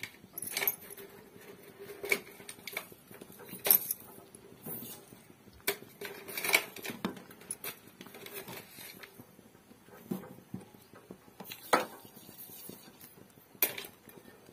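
Long-handled ladle stirring cracked-wheat porridge in water in a metal pan on a gas stove: irregular scrapes and knocks of the ladle against the pan, a dozen or so scattered through.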